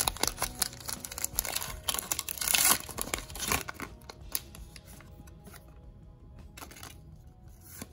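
Foil Pokémon booster pack wrapper torn open and crinkled in the hands, a busy crackle for the first three and a half seconds. It then gives way to soft handling of the cards as they are slid out of the pack.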